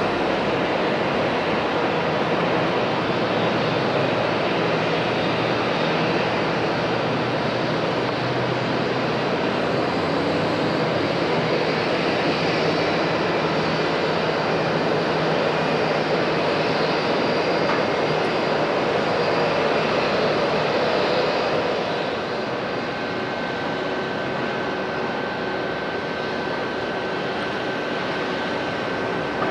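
Airbus A340's four jet engines running steadily at low thrust as the airliner taxis, a continuous roar. About two-thirds of the way through it drops slightly in level and a thin, steady whine comes in.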